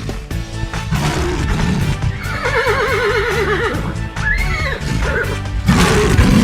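Background music with a horse whinny sound effect laid over it: one long, trembling whinny in the middle, then a shorter call.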